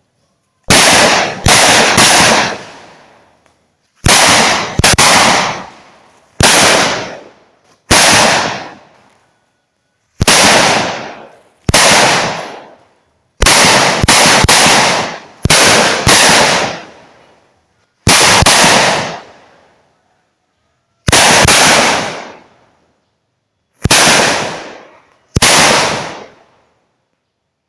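Petasan firecrackers going off one after another: about eighteen loud bangs at uneven intervals, some in quick pairs or threes, each followed by a long fading echo.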